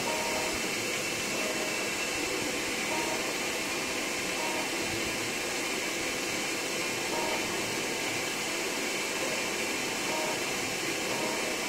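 Flatbed CNC cutting plotter working a PVC sheet: a steady rushing hiss, which fits the suction blower of its perforated vacuum table, with brief whining tones from the drive motors now and then as the tool head moves.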